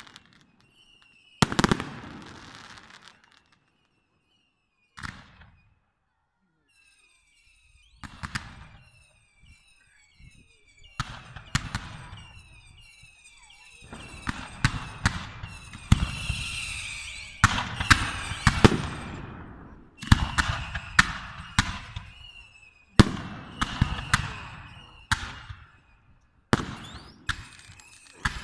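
Fireworks display: aerial shells launching and bursting with sharp bangs that trail off. The bangs are sparse at first and become a rapid run of bangs from about halfway, with short high whistling tones between them.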